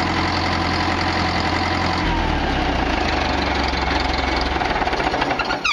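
The Case 780 backhoe's turbo diesel engine is running steadily, and its low note drops about two seconds in as it slows. It dies away right at the end.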